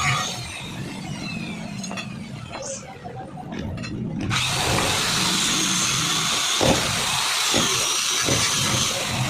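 Power grinder sharpening a grass-cutter blade, running louder and steadier from about four seconds in.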